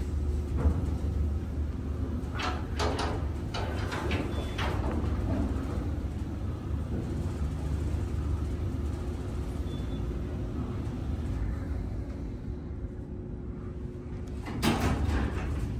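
Schindler traction freight elevator cab travelling up the hoistway: a steady low hum with a held tone from the drive, and scattered rattles from the cab and its mesh gate. Near the end the hum drops away and there is a brief clatter as the cab stops at the landing.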